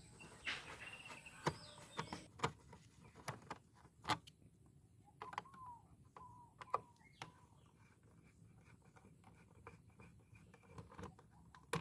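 Scattered faint clicks and taps, with birds chirping faintly in the background.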